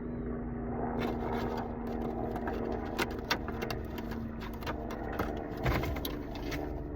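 Packaging and small craft items rustling, scraping and clicking as they are handled, with scattered sharp clicks, over a steady low hum that fades out about five and a half seconds in.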